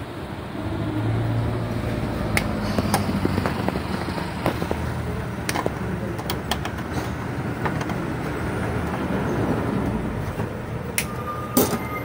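Scattered sharp clicks and small knocks of hands and a small hand tool handling wires in a tower fan's plastic base, over a steady low background rumble.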